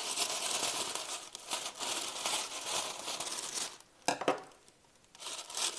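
Plastic roasting bag crinkling and rustling as it is snipped open with scissors and handled. There is a short sharp clack about four seconds in, then a brief pause, and the crinkling picks up again near the end.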